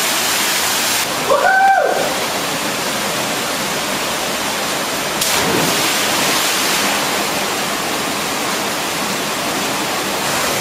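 A waterfall pouring into a rock pool: a steady, loud rush of falling water. A short shout cuts in about a second and a half in.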